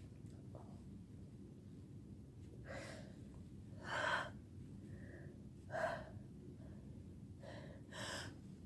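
A sick person taking about five short, quiet gasping breaths between sneezes, the catching inhalations of a sneezing fit building toward the next sneeze.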